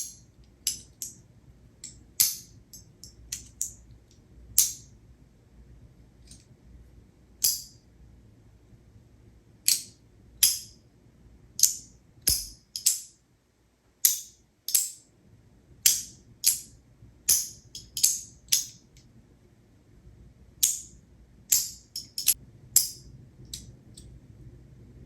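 Magnetic fidget toy snapped back and forth between its two positions: sharp, high-pitched metallic clicks at an irregular pace, about one or two a second.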